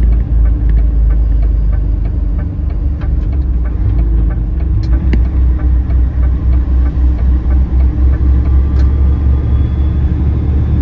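Heavy truck-and-trailer unit's diesel engine and road noise heard inside the cab while driving loaded: a steady low rumble with faint scattered ticks.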